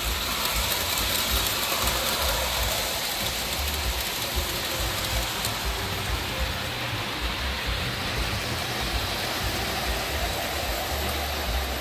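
O gauge toy trains running on T-rail layout track: a steady rumbling, rushing noise of the locomotive's motor and the wheels on metal rail.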